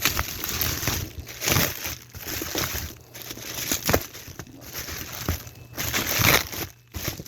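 Bubble wrap and packaging being pulled open and unwrapped by hand, with irregular crinkling, rustling and crackling.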